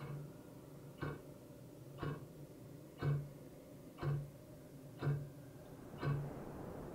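Slow, steady clock ticking, one tick about every second, each tick with a short low thud under it. The ticks grow louder toward the middle, and a faint hiss swells up near the end.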